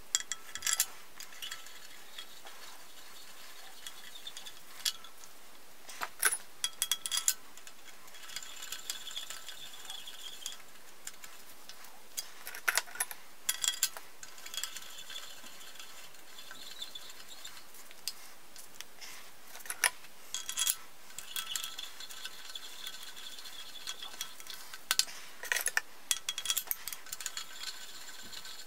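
Screwdriver turning slotted steel head studs down into an engine block: irregular metallic clicks and ticks of the blade in the stud slots, with several short spells of scraping and rattling. The studs are being run down by hand until they bottom out, before torquing.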